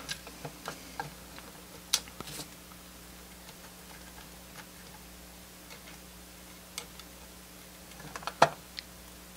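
Scattered small clicks and taps from a black plastic enclosure being handled and a metal pick prying at the display inside it. A sharper click comes about two seconds in and another near the end.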